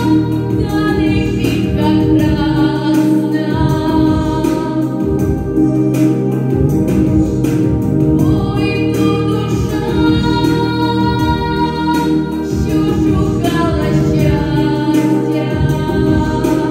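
Teenage girl singing a Ukrainian song solo into a microphone over accompanying music, her voice gliding between long held notes above steady sustained low chords.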